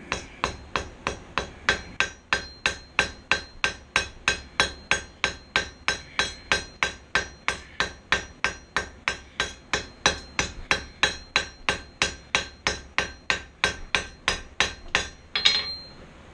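Hand hammer striking a steel bar on an anvil in a steady rhythm, about three blows a second, with the anvil ringing high after each blow: forging the bar round after its corners were knocked off. A single louder clank comes near the end, and then the hammering stops.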